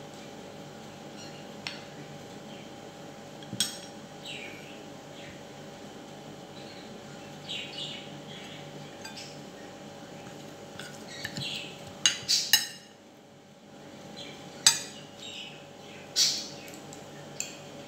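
Metal spoons clinking and scraping against ceramic bowls and plates as food is dished out: a scatter of separate short clinks and knocks, the loudest in a cluster past the middle, over a faint steady hum.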